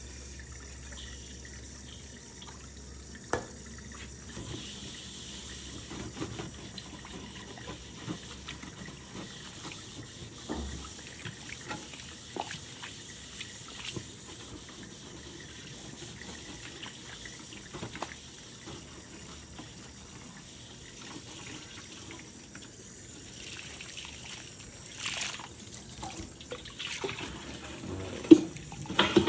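Wet sponge scrubbing a rusting steel wok with Bar Keepers Friend cleanser in a stainless steel sink, with occasional light knocks of metal. Near the end the tap runs as the wok is rinsed.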